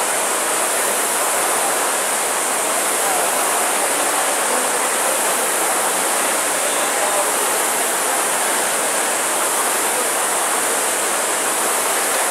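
Several Concept2 air-resistance rowing ergometers running at once, their fan flywheels making a steady rushing whir as the rowers pull through their strokes.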